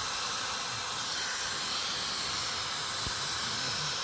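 Dyson Supersonic HD03 hair dryer blowing steadily: an even rushing hiss of air with a faint high steady whine, and a soft low bump about three seconds in.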